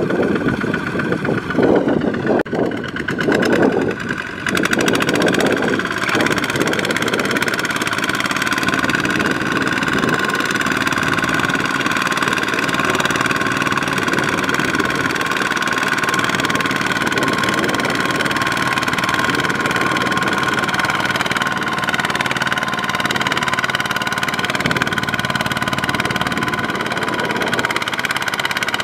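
Single-cylinder diesel engine of a two-wheel walking tractor running under load as it drags a loaded trailer through deep mud; uneven for the first few seconds, then steady.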